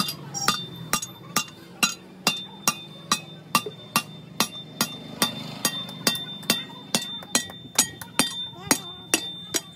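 Long steel bar rammed down through a truck's front wheel hub, striking metal inside with sharp ringing clanks about twice a second, to drive out the wheel bearing.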